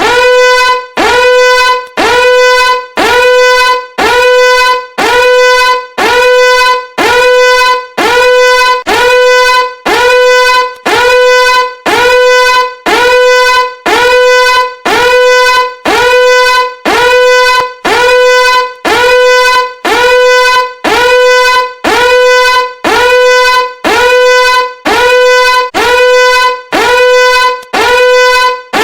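Sped-up emergency alarm sound effect: a loud horn-like alarm tone blaring about once a second, each blast swooping up briefly at its start and then holding one steady pitch.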